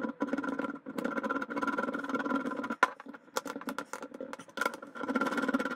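Sped-up handling noise of a steel Krinkov muzzle device being threaded onto an airsoft AK's barrel: scattered sharp metal clicks and knocks over a steady droning hum.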